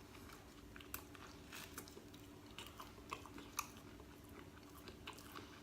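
Faint chewing and biting of buttered ciabatta, with scattered small crisp crunches.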